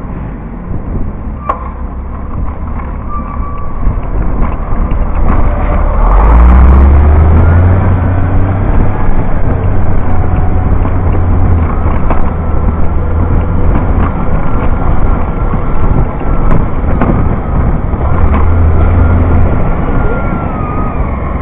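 Garbage truck's engine running close by, a heavy low rumble that rises in pitch about six seconds in as it revs up, then stays loud.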